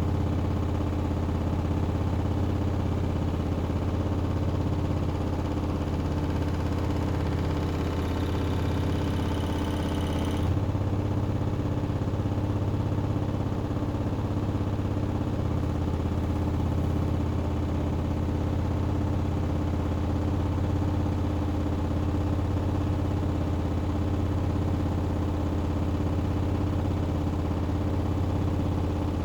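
Hoover Axi washing machine spinning its drum at a steady speed, a constant mechanical hum with a slight change in tone partway through.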